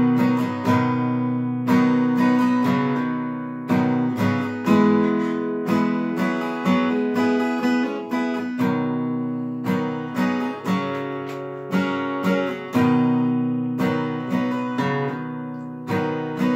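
Steel-string dreadnought acoustic guitar with a capo, strummed chords in a steady rhythm, each stroke ringing out and fading before the next: an instrumental passage with no singing.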